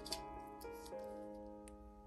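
Soft piano background music with slow held notes. About a tenth of a second in there is one short crisp rustle as the iPhone is slid out of its paper wrap, and a faint tick near the end.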